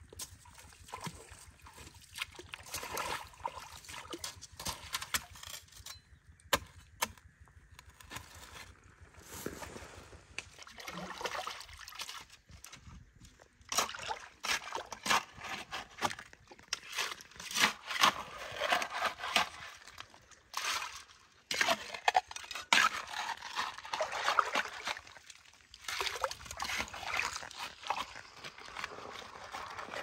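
Muddy water sloshing and splashing as a person wades through a shallow pool and works a round mesh sieve through it, in irregular bursts that grow busier and louder from about halfway.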